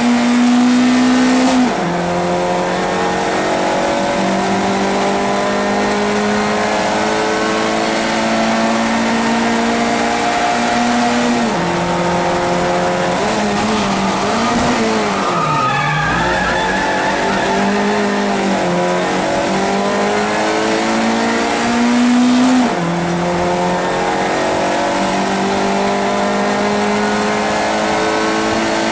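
Race car engine heard from inside the cockpit, pulling hard through the gears. The pitch drops sharply at an upshift about two seconds in and then climbs again. Around the middle the revs fall and waver for several seconds, with a brief squeal of tyres. They then climb with another upshift a few seconds before the end.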